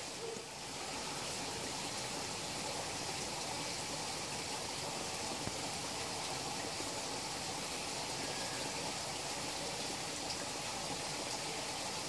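Steady rush of running water in a koi pond, an even sound without distinct splashes.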